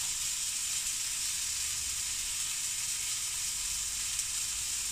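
Duck breast sizzling steadily in a frying pan, an even hiss of fat frying.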